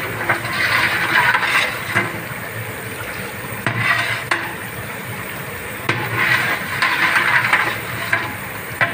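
Long-handled metal ladle stirring thick dal in a large aluminium cooking pot: the lentils slosh and the ladle scrapes the pot in three spells, with sharp knocks of metal on metal between them.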